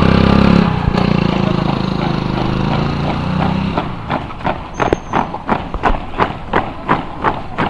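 A steady low drone for the first few seconds, then the quick, even footfalls of a column of uniformed runners' boots striking a paved road in step.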